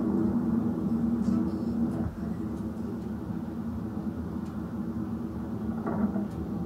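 Vehicle engine running steadily, a muffled low hum that drops a little about two seconds in.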